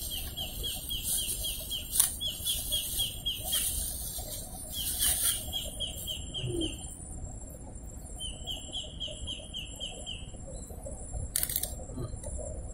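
A small bird calling in a rapid trill of short, high, upward-flicking chirps, about eight a second, repeated in four bouts of about two seconds each. Plastic bags crinkle now and then, with a sharp click about two seconds in.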